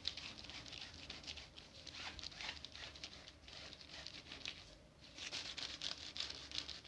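Faint, irregular rustling and scratching in short strokes: a hand and marker rubbing over a plastic-covered paper chart.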